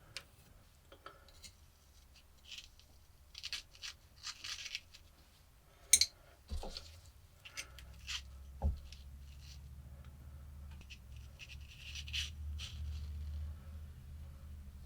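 Small parts being handled and worked by hand: scattered light clicks, scrapes and rustles, with one sharper click about six seconds in. A low steady hum comes up about eight seconds in.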